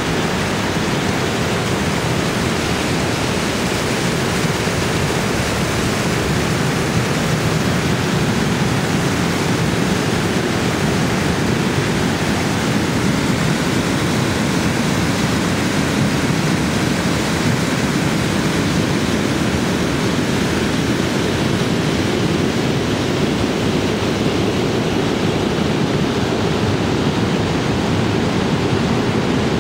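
Small waterfall with steady, even rushing water noise that holds unchanged throughout.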